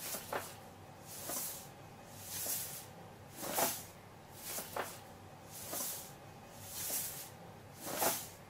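A cat's noisy, hissing breaths, evenly spaced about once a second, eight in all.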